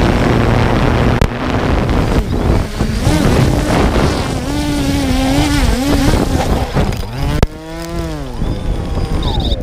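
Small quadcopter drone's propellers buzzing in wind, the pitch wavering and gliding up and down as the motors speed up and slow down. A sharp knock sounds about three-quarters of the way in, followed by a falling pitch.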